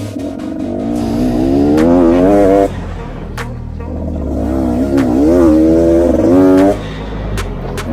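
Off-road motorcycle engine revving under throttle. It rises for about two and a half seconds, drops off as the throttle closes, then rises and wavers again before dropping near the end, with a few sharp knocks in between.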